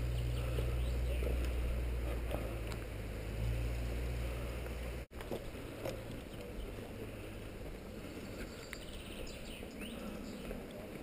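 Low steady rumble of wind and handling noise on a body-worn camera's microphone while walking, breaking off for a moment about five seconds in and quieter afterwards. Faint chirps come in near the end.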